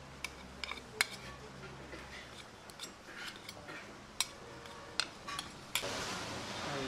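Metal serving spoon clinking and scraping against a large metal biryani pot and a plate as the rice is scooped out and served, about a dozen sharp separate clinks, with a longer scraping swish near the end.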